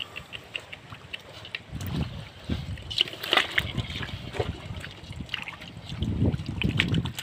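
Hands sloshing and scooping through shallow muddy water, with small splashes and trickling drips. The sloshing grows heavier near the end.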